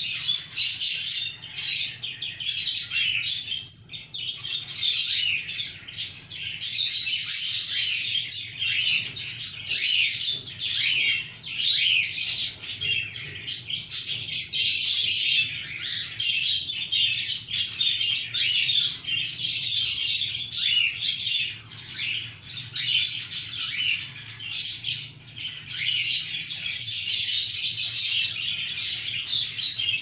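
Budgerigars chirping in a dense, rapid, high-pitched chatter that goes on with only brief pauses.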